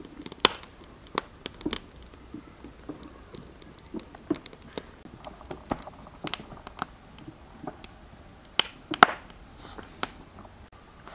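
Wood fire crackling, with irregular sharp pops from the burning logs; the loudest pops come about half a second in and a couple near the end.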